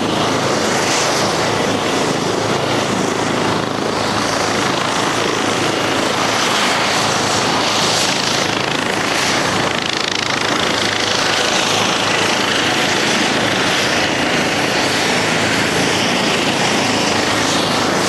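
Aircraft turbine engines running steadily on the apron: a constant loud roar with a whine above it and no pauses.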